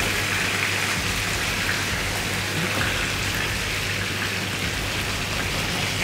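Steady hiss of food frying in hot oil in a pan, over a low steady hum.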